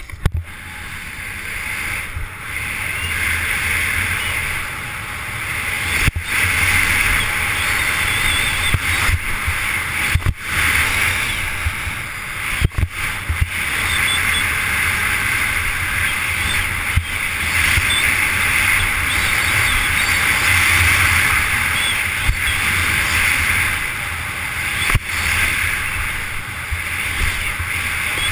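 Snowboard sliding and scraping over hard-packed snow with wind rushing past a rider-worn camera, a steady loud rush that swells and eases through the turns. A few sharp knocks break it, a couple around the middle and one near the end.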